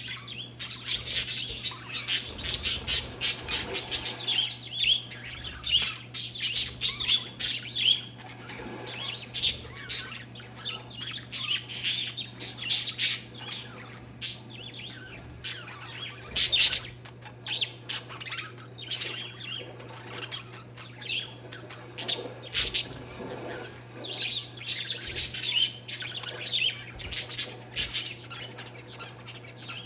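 Parakeets and zebra finches chirping and squawking, many short, high calls overlapping in quick succession, over a steady low hum.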